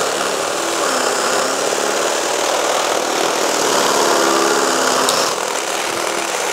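Mollar MLR-CID20500-U cordless impact drill running steadily under load, driving a 20 mm masonry bit into a masonry block on speed 2.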